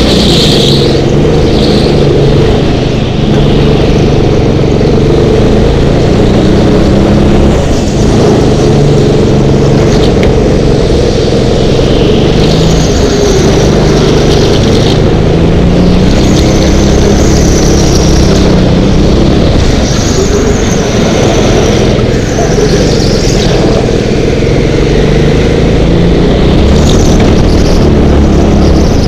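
Go-kart engine running hard from on board, its pitch rising and falling through the corners, with tyres squealing at times on the smooth concrete track.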